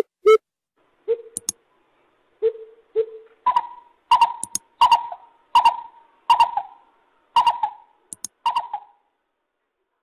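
Greater coucal calling: a few deep hoots early on, then a regular string of higher hoots about one every 0.7 s, which stops about nine seconds in.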